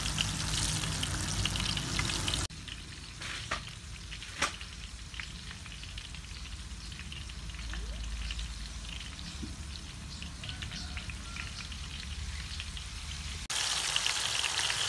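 Battered bananas deep-frying in hot oil in a wok, a dense crackling sizzle. About two and a half seconds in, the sizzle drops away to a quieter low rumble with two sharp clicks. Near the end the full frying sizzle comes back.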